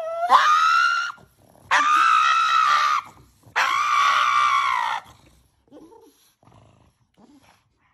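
A pug screaming while having its nails clipped: three long, high-pitched cries of about a second each, the first rising in pitch, then the cries stop about five seconds in.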